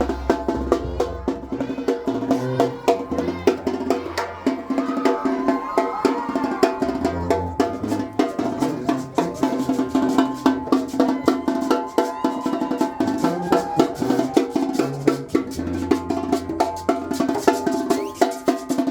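Oaxacan wind band playing: sustained brass and woodwind lines over a stepping bass line and a steady beat of drum hits.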